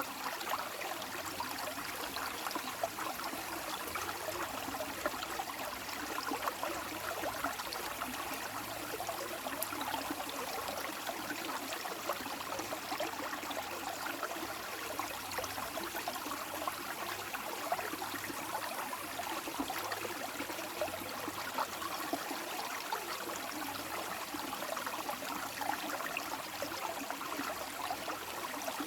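Running water flowing steadily, a continuous trickling wash with no pauses.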